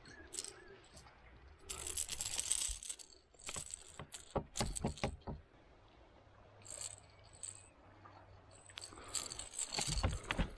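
Metal pliers and a lure's hooks clinking and rattling in bursts as the hooks are worked free from a fish's mouth, with a quick run of sharp clicks in the middle and more near the end.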